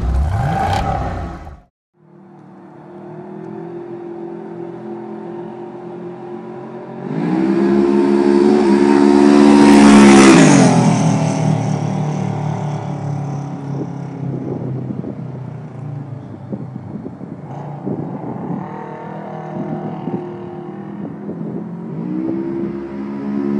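Polaris RZR 900 XP's 875 cc parallel-twin engine running through a Gibson aftermarket exhaust. It opens with quick blips of the throttle and cuts out briefly just under 2 s in, then settles into a steady idle. At about 7 s it revs up and is held high for a few seconds, loudest near 10 s, then drops back; it is quieter and more uneven for a while and revs up again near the end.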